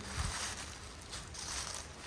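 Steady outdoor background noise, a low rumble with hiss, with a few faint soft knocks.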